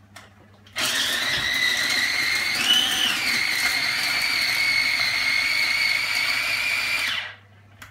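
Small Kenwood mini chopper's electric motor whirring as it blends a thick mix of chickpeas, vegetables and rice. The high whine starts suddenly about a second in, rises briefly in pitch near the three-second mark, and cuts out about seven seconds in.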